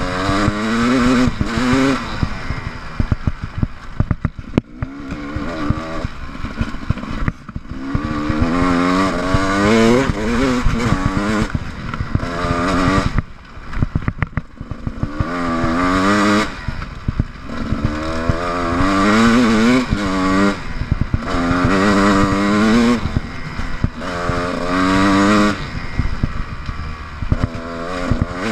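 GasGas EC 300 two-stroke enduro motorcycle engine, heard from on board, revving up and falling back again and again as the throttle is opened and closed, roughly every two to three seconds. Short knocks and clatter from the bike running over rough ground come through between the revs.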